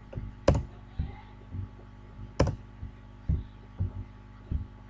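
Computer keyboard keys pressed one at a time, roughly two a second, mostly dull knocks with two sharper clicks, over a faint steady electrical hum.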